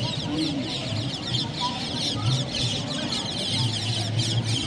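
Many small birds chirping at once, a dense unbroken chatter of short falling calls, over a low steady background hum.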